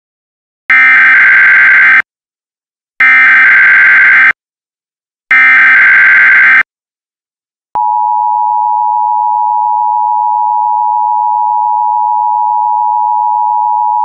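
Emergency Alert System SAME header: three short bursts of warbling digital data tones about a second apart. About eight seconds in, the steady two-tone EAS attention signal (853 and 960 Hz) follows.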